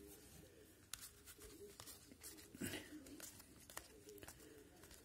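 Near silence with a few faint soft clicks and slides of trading cards being flipped through by hand.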